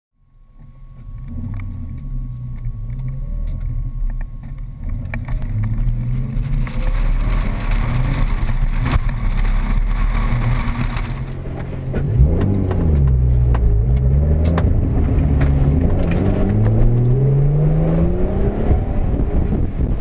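Nissan 300ZX's V6 engine pulling hard, its pitch climbing and dropping back again and again as it revs up and shifts, heard from inside the car. About twelve seconds in, the sound switches from the GoPro camera's own microphone, with a lot of high hiss, to a voice recorder in the rear hatch, where the engine is louder and the hiss is gone.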